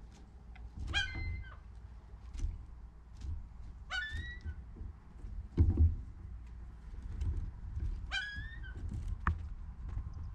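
A bird calling three times, each a short harsh call with a rising-then-level pitch about half a second long, a few seconds apart. Scattered knocks and one louder thump come in between.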